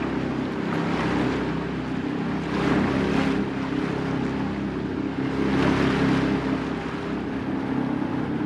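Small open tour boat under way: its engine running steadily, with water rushing and splashing along the hull in several swells.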